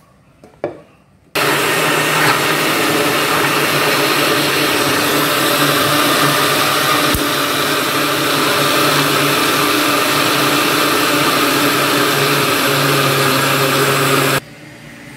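Countertop blender running at a steady speed, churning a full jar of liquid flan batter (eggs and milks). It switches on about a second in and cuts off suddenly near the end.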